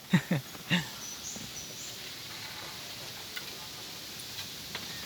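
Steady outdoor background hiss, with a few short vocal sounds in the first second and faint high chirps about a second and a half in.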